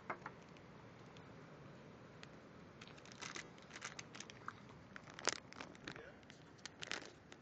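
Clear plastic bag crinkling as it is handled, in scattered rustles and clicks, the loudest about five seconds in.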